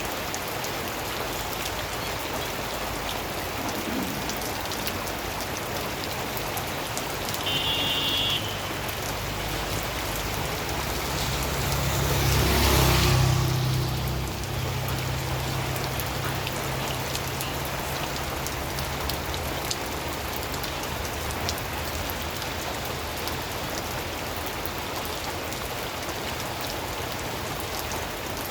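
Steady rain falling, an even hiss with many fine drop patters. About halfway through, a vehicle passes: a louder whoosh with a low engine hum rises and fades over a few seconds.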